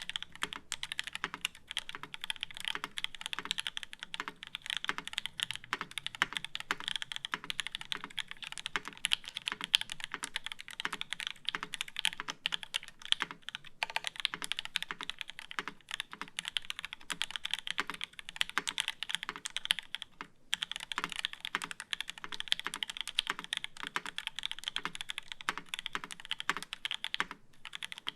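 Mechanical keyboard with H1 switches in an aluminium plate and GMK Jamon keycaps being typed on steadily and quickly, with brief pauses about two-thirds through and near the end.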